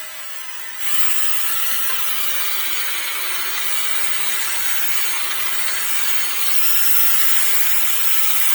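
Electric drill running steadily under load, drilling, starting lighter and getting louder about a second in.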